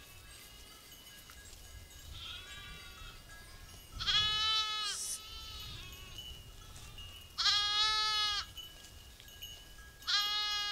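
Sheep bleating in a grazing flock: a faint call about two seconds in, then three loud bleats of about a second each, a few seconds apart.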